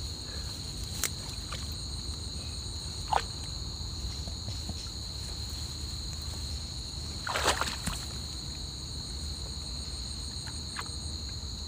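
Steady high-pitched chorus of insects, with a few short rustles and knocks of hands working in the grass; the loudest rustle comes about seven and a half seconds in.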